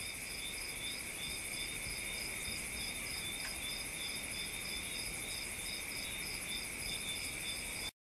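Chorus of chirping insects: several steady, overlapping high trills, one of them pulsing a few times a second. It stops abruptly just before the end.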